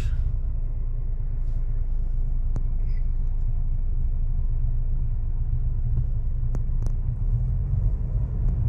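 Steady low rumble of a car driving slowly, heard from inside the cabin, with a few faint clicks.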